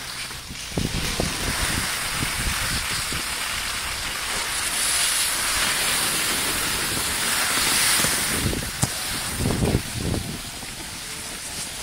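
Snowboards sliding over packed snow: a steady hiss that swells in the middle, with wind buffeting the microphone in low gusts near the start and again about ten seconds in.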